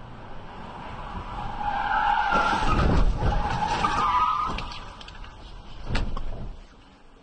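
Car tyres squealing in two wavering bursts, over vehicle noise that builds to a peak about three seconds in. A sharp knock follows about six seconds in.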